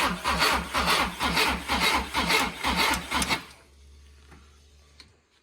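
Starter motor cranking the Renault Megane's F7R 2.0-litre four-cylinder engine, turning it over in a rhythmic pulse about four times a second without it catching. The cranking stops about three and a half seconds in.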